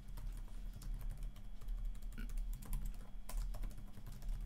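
Typing on a computer keyboard: quick, irregular key clicks, over a steady low electrical hum.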